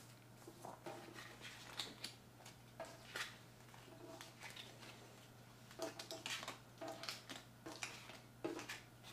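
Pokémon trading cards being picked up off a wooden table and gathered into a stack: faint, irregular taps, slides and rustles of card stock.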